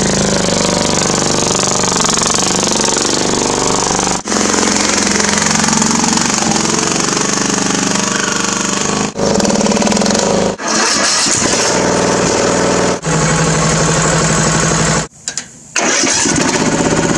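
Poulan Pro riding lawn mower engine running loudly as the mower drives through shallow floodwater, broken by a few abrupt cuts and a brief quiet gap near the end before it runs again.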